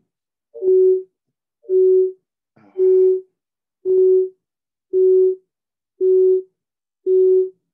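A single mid-pitched tone beeping on and off about once a second, each beep about half a second long, heard through a video call. It is blamed on a phone connected to the call.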